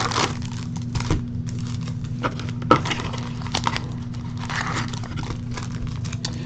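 Scattered clicks, taps and rustles of a trading-card box and its packaging being handled and opened, over a steady low hum.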